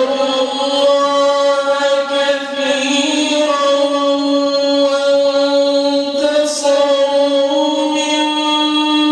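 A man reciting the Quran in melodic, drawn-out tajweed style, holding one long unbroken phrase whose pitch steps up and down a few times.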